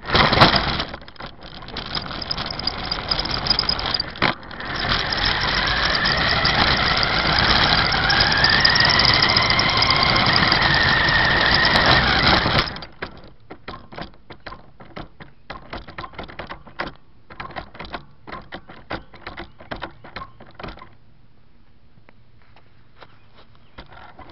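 Toy RC car driving with the microphone on board: a loud, dense whirr of motor, gears and wheels with a faint whine that rises and falls, cutting off suddenly about 13 seconds in. After that come scattered light clicks and rattles.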